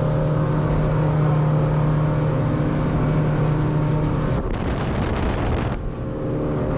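Motorboat running at speed: a steady engine drone over the rush of water and wind on the hull. About four seconds in, the engine hum drops out for a second or so under a louder rushing noise, then returns.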